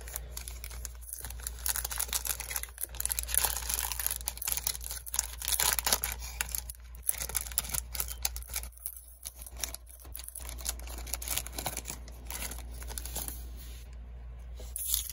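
Foil wrapper of a Panini Prizm football card pack being torn open and crinkled by hand, a dense run of crackling rustles that eases off near the end as the cards slide out.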